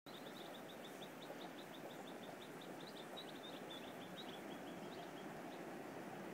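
A bird calling in a fast run of short high chirps, about five a second, which stops near the end, over a steady background rush of noise.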